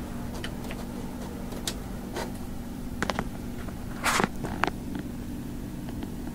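Printer running while it prints, with a steady low mechanical hum and scattered clicks and paper rustles; the loudest, a sharp rustle, comes about four seconds in.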